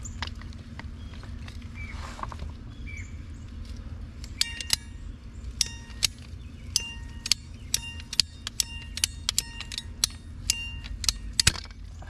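Sharp metallic clicks at an irregular pace, each with a brief ring, as a hand tool works on the water line pipe that was just marked for cutting. They start about four seconds in and run over a steady low rumble.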